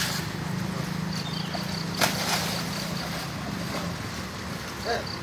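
Steady low engine hum, with a short sharp noise about two seconds in.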